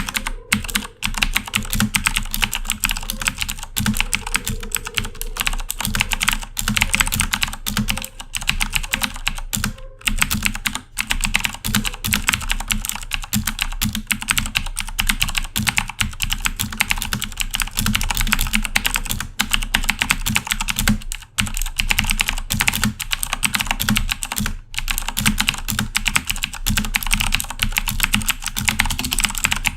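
Continuous fast typing on a Corsair K70 mechanical keyboard with clicky Cherry MX Blue switches: a dense stream of sharp keystroke clicks, broken by a few brief pauses.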